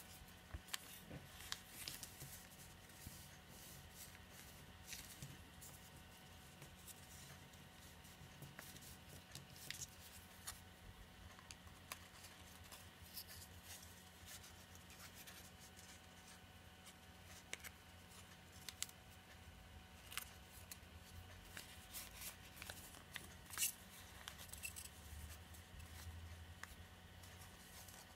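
Faint crisp creasing and crinkling of a sheet of origami paper being folded and pinched by hand, in scattered short rustles and clicks.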